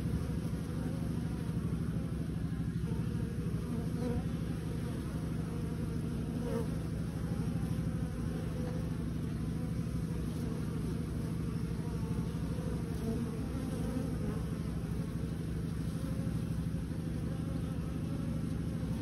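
Many honeybees buzzing together in a steady, low hum.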